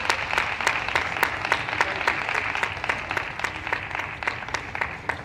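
Spectators applauding the end of a table tennis rally, with many distinct individual claps. The clapping thins out near the end.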